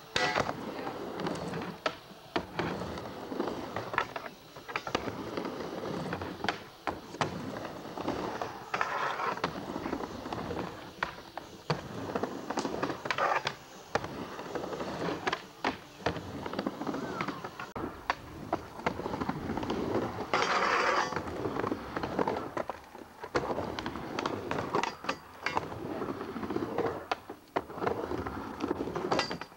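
Skateboard wheels rolling back and forth on a plywood mini ramp, with repeated sharp clacks as the board's tail and trucks hit the deck and the ramp's edge during tricks.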